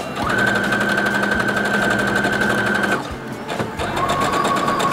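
Computerized sewing machine running as it stitches a narrow double-folded hem in curtain fabric. It sews steadily with a constant whine, stops about three seconds in, then starts again at a lower-pitched, slower run.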